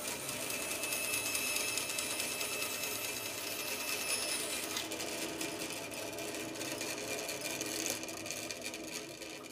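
Bandsaw running and cutting a curve through a piece of wood: a steady motor and blade drone with the rasp of the teeth in the wood. The cut finishes near the end and the noise eases off.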